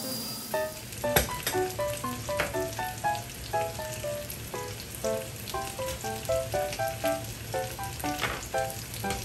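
Salmon steaks sizzling in a frying pan, a steady hiss broken by sharp pops of spattering fat, the strongest about a second in. Light background music of short plucked notes plays over it.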